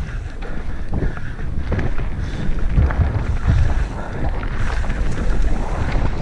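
Wind buffeting the microphone as a mountain bike rides fast over a rough moorland trail, with frequent short knocks and rattles from the tyres striking stones.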